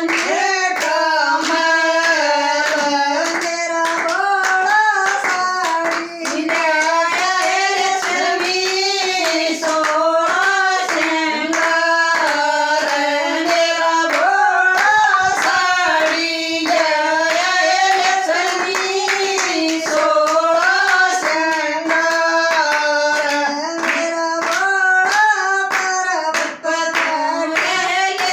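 A Hindu devotional bhajan sung in Haryanvi to steady hand clapping that keeps the beat.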